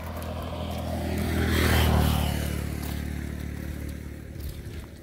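A motorcycle passing close by: its engine gets louder to a peak about two seconds in, then fades away.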